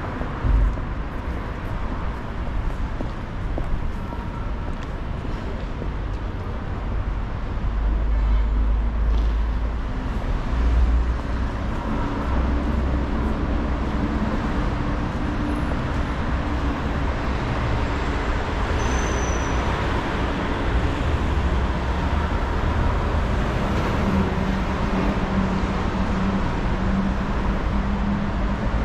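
City street traffic: road vehicles running past, with a low engine rumble and hum that grows louder about a quarter of the way in and holds steady after.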